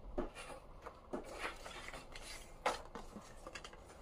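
Paper dust jacket of a hardcover book being handled: rustling and crinkling, with several short sharper crinkles, the loudest about two-thirds of the way in.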